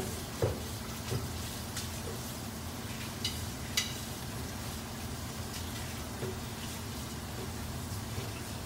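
Pot of soup broth heating on a stove, a steady low hiss as it works toward a boil, with a few light clicks.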